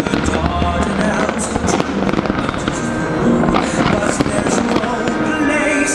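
Large firework display: many aerial shells bursting and crackling in quick, dense succession.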